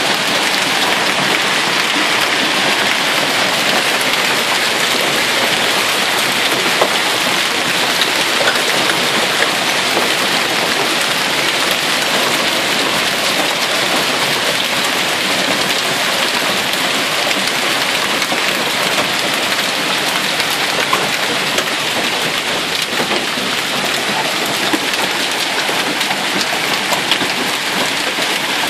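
Heavy hail falling: a steady, dense clatter of countless hailstones from marble to ping-pong-ball size, with a few sharper single hits standing out.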